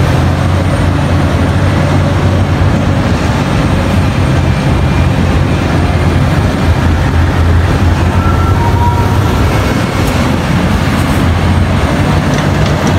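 Liebherr 984 mining excavator's diesel engine running steadily under load as the machine digs and swings a bucket of earth, a deep even drone with a constant rush of mechanical noise over it.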